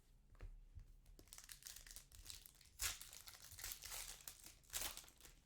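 Foil trading-card pack wrapper being crinkled and torn open by hand: soft crackling that grows about a second in, with two sharper crackles near the three- and five-second marks.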